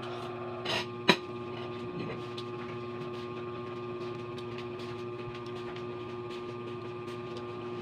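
A steady electrical or appliance hum, with faint chewing and a sharp click about a second in.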